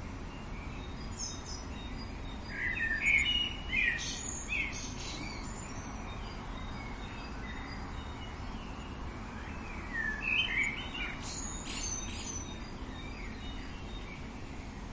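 Songbirds singing in two bouts of quick chirping phrases, one about three seconds in and one about ten seconds in, over a steady low background rumble.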